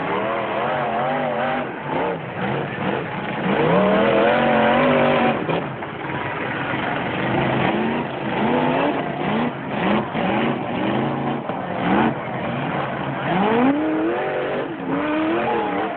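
Engines of several demolition derby pickup trucks revving up and down, overlapping one another.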